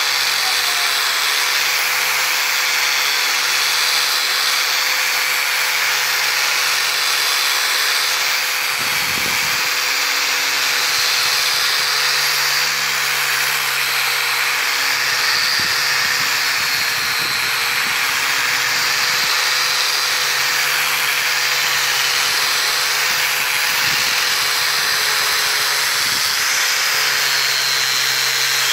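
Electric angle grinder with a sanding pad running steadily as it sands solid jackfruit wood: a constant motor whine over the rasping hiss of the abrasive disc on the wood. The pitch of the whine dips slightly near the end.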